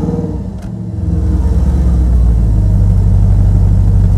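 Audi RS5's 4.2-litre V8 just after start-up: the start-up flare dies down in the first second, then the engine settles into a steady idle at about 1,000 rpm.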